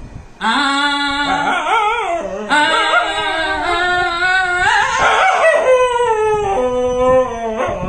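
A dog howling along with a man singing: the dog's long, wavering howls rise and fall over the man's held low notes, starting about half a second in.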